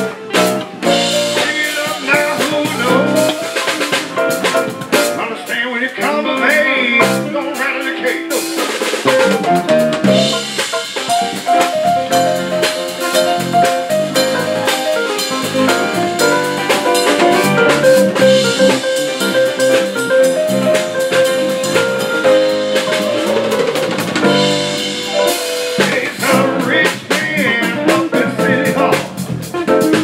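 Live band playing: drum kit with snare rimshots, electric and acoustic guitars, and keyboard, with a long held melody line through the middle.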